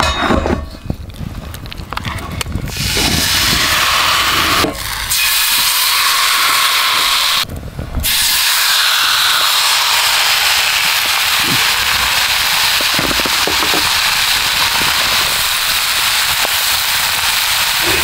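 Thick wagyu steak searing in a hot frying pan over a campfire, a loud, steady sizzle. It builds about three seconds in after some quieter handling sounds, and drops out briefly twice.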